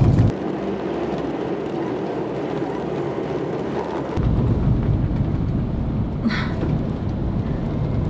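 Engine and tyre rumble inside a moving Kia Ray's cabin, a steady noisy drone that grows heavier and deeper about four seconds in. A brief sharper sound comes about six seconds in.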